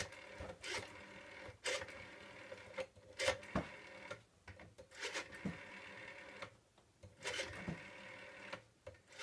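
Rotary-dial desk telephone being dialled: the finger dial is wound round and spins back several times, each return a short mechanical whirr with quick clicks.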